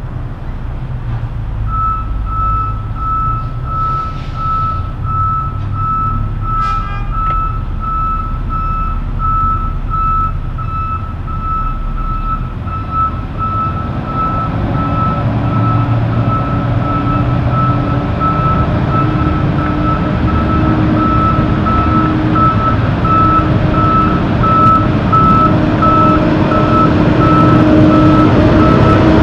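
A truck's backup alarm beeps in an even, steady rhythm. From about halfway through, a heavy diesel engine grows louder at a steady pitch as the Kenworth tractor-trailer moves under power.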